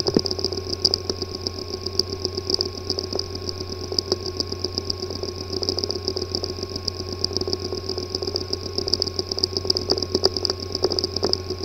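A hard drive with a physically damaged disk assembly running in a recorded fault sample: a steady buzz and whine with rapid, irregular fine ticking over it. This is the sound of failed heads or platters, and such a drive is not accessible.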